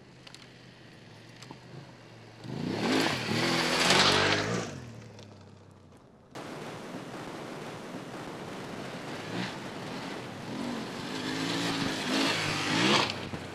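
BMW F850GS parallel-twin engine revving as the motorcycle is ridden past on a dirt track, twice: a loud pass about three seconds in with the engine note rising and falling, then a second approach that builds and passes near the end.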